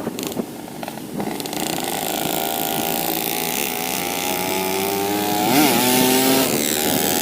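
Yamaha RX-King 135 single-cylinder two-stroke engine, its carburettor set rich, running under way, with a quick rev up and back down about five and a half seconds in.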